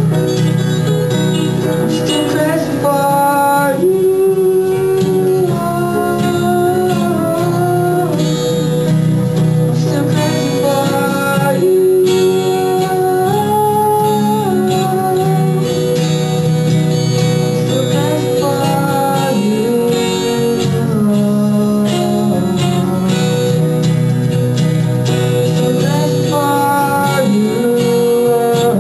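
Live band playing a song: electric guitars over a drum kit, with a held, gliding melody line on top, at a steady loud level.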